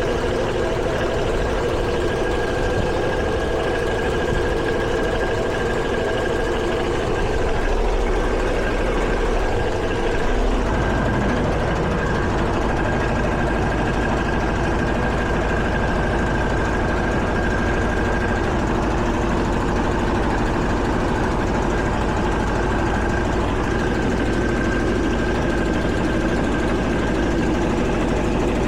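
Air conditioning unit running: a steady mechanical hum with a few steady tones, and the low hum grows stronger about ten seconds in.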